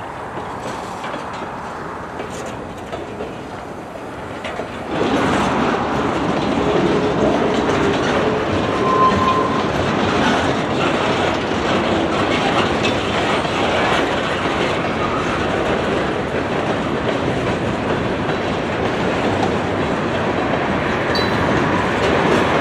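Freight train cars rolling past on the rails: a steady rumble of wheels and cars that grows louder about five seconds in.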